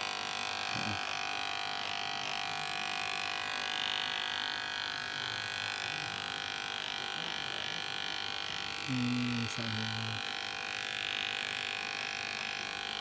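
Cheap electric hair clipper running with a steady buzzing hum.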